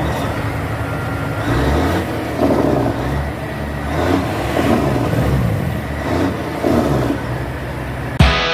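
A car engine idling and being revved in several short blips, its pitch rising and falling each time. Music with guitar and drums starts abruptly near the end.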